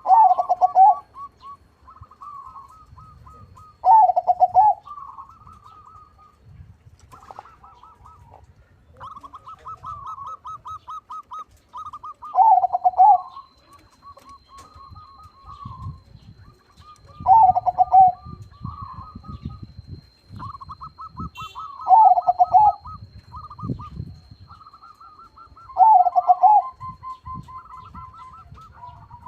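Hybrid perkutut (zebra dove) singing: quick pulsed trilling phrases, each followed by a loud lower coo, repeated about every four to five seconds.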